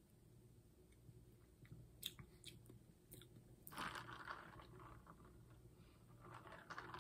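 Mostly quiet, with a few faint clicks, then short noisy bursts about four seconds in and again near the end, as a cup of soda is handled and sipped from.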